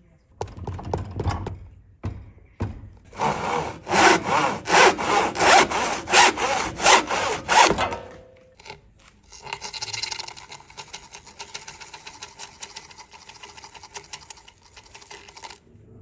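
Hand saw cutting through wood, likely the old cricket bat handle being sawn off, in loud, even back-and-forth strokes at about two to three a second. Quieter, quicker rasping strokes follow for the last several seconds.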